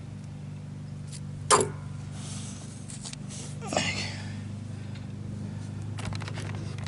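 Light clicks and scrapes of a steel cotter key and washer being worked into the hole of a riding mower's tie rod end, with two short breathy grunts of effort, over a steady low hum.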